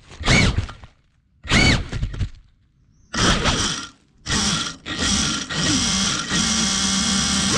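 FPV racing drone's motors and propellers whining in short throttle bursts, each rising and falling in pitch, with near-quiet gaps between them; from about three seconds in they run almost continuously with a dense high whine.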